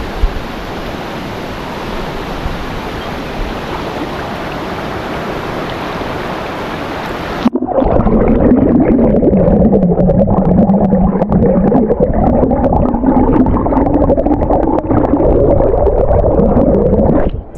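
Rushing river water, then about seven and a half seconds in the sound turns suddenly muffled and deep as the microphone goes under the water, with wavering low gurgling from the current.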